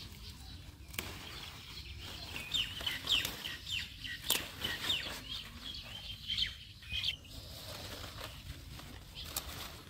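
Birds chirping in quick, short falling calls, thickest through the middle, over a light rustle of leaves. A few sharp snaps come as pumpkin shoots are broken off by hand.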